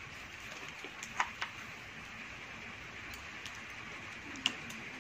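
Steady hiss of falling rain, with a few faint clicks about a second in and again near the end.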